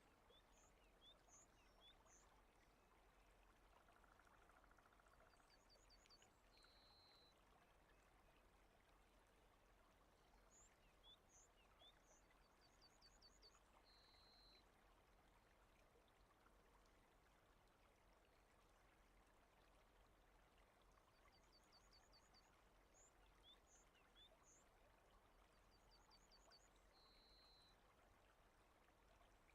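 Faint steady rain ambience, an even hiss. A bird sings short high chirping phrases over it, each group ending in a brief buzzy note, about every ten seconds.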